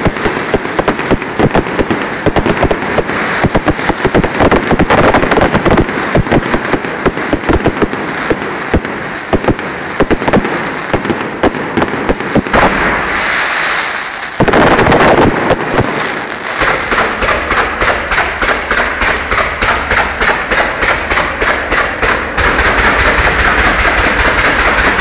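Fireworks display: a dense, rapid string of bangs and crackles from firecrackers and shells, broken about halfway by a couple of seconds of hissing without bangs. Then loud bangs follow at an even pace of about three a second.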